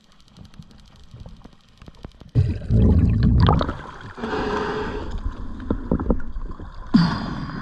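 Muffled underwater hiss with faint clicks. About two seconds in, the camera breaks the surface and loud water sloshing and splashing starts, waves lapping against a boat's stern, with wind on the microphone.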